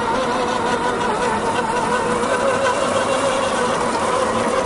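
Simulated engine sound from an RC crawler's engine sound module, running steadily with a slightly wavering pitch as the scale Defender drives.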